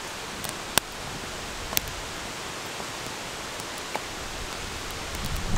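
Small twig campfire crackling: three sharp pops over a steady hiss. Rustling near the end as a stick is laid on.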